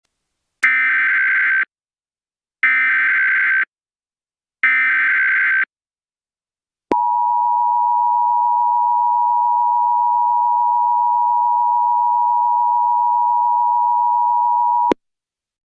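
Emergency Alert System signal. Three one-second bursts of screeching digital data (the SAME header, which codes the alert's origin, event and area) come a second apart. Then the two-tone attention signal is held for about eight seconds and cuts off sharply, announcing the spoken alert.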